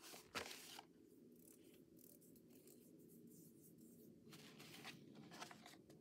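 Faint handling of paper and cardstock sheets: a short, sharp rustle about half a second in and softer rustling later on, over a low steady room hum.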